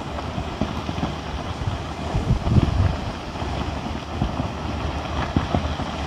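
Steady rumbling with irregular knocks and crackles from a lava flow cascading down a steep cliff, its blocks of lava and rock tumbling and breaking apart.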